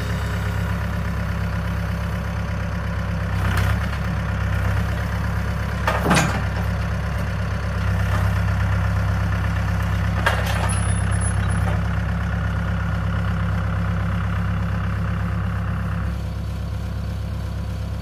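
Mahindra compact diesel tractor engine running steadily at a low idle-like speed, with a few short sharp knocks about three, six and ten seconds in.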